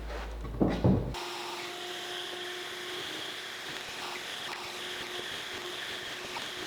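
Two loud knocks, like wood being handled, just under a second in, then a steady mechanical hum with a faint whine from a running workshop machine.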